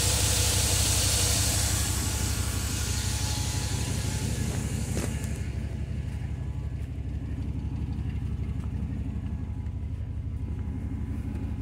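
Chevrolet 6.0L gasoline V8 idling with a steady low rumble. A hiss heard at first fades about five seconds in, leaving the engine note.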